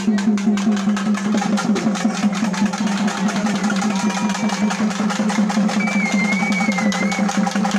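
Fast, steady drumming of about eight strokes a second over a low ringing drum tone, the live accompaniment to a Kali attam dance. A thin, high, wavering tone sounds for a couple of seconds past the middle.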